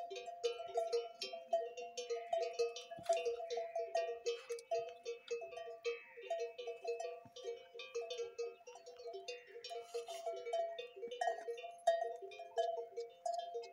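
Neck bells on drinking camels clanking irregularly, several strikes a second at two or three different pitches.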